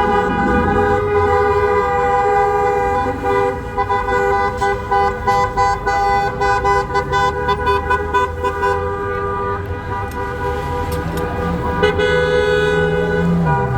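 Several car horns blaring together in a steady, continuous chorus of held tones. For a few seconds in the middle they break into rapid short honks.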